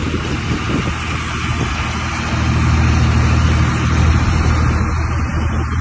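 Vehicle running with a steady low rumble under a broad rushing noise, growing louder about two seconds in.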